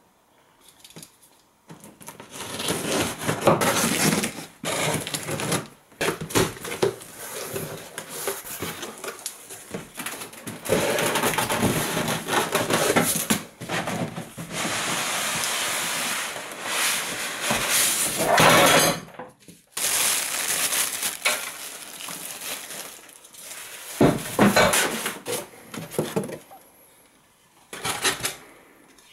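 Cardboard box and polystyrene foam packing being handled and pulled apart: irregular scraping, rustling and knocks in bursts, with a brief pause a little past the middle.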